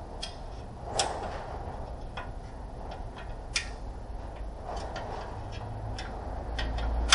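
Irregular light clicks and knocks, with louder sharp clicks about a second in and about three and a half seconds in, over a steady low rumble that swells near the end.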